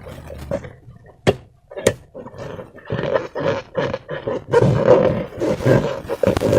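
Slime and a rubber balloon being squeezed and worked by hand: continuous wet, rubbery squelching, with two sharp clicks early on and a quieter stretch around them.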